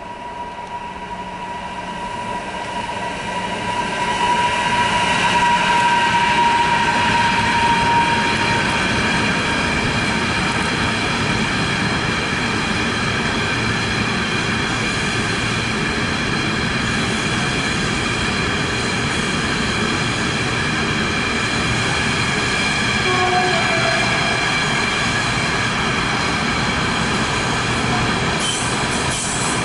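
An electric freight locomotive approaching, then a long intermodal container train rolling steadily past. It grows louder over the first four seconds, then holds, with a steady high-pitched squeal of several tones from the wagon wheels.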